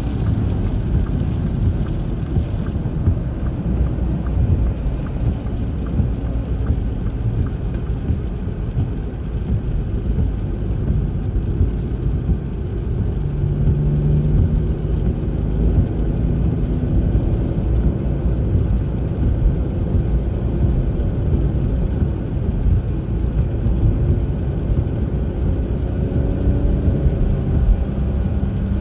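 Steady low road rumble inside a moving car's cabin, tyres and engine together. Near the end a faint engine tone rises as the car speeds up.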